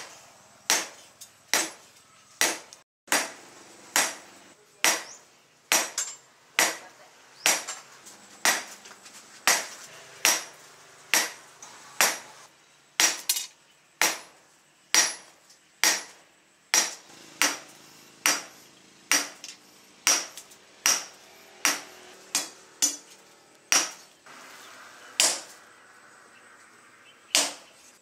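Hand hammer striking hot rebar steel on an anvil in steady forging blows, a little more than one a second, each with a short metallic ring. The blows pause briefly near the end before one last strike.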